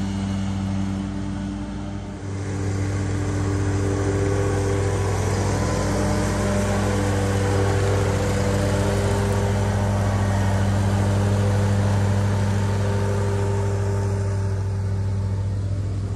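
Commercial stand-on lawn mower's engine running steadily while mowing, a constant hum that dips briefly about two seconds in and comes back.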